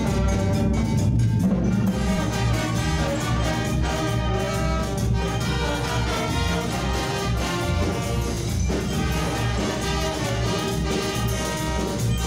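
A small band of trumpets, trombones and clarinets with electric bass and keyboard playing a tune together, the brass leading over a steady pulsing bass line.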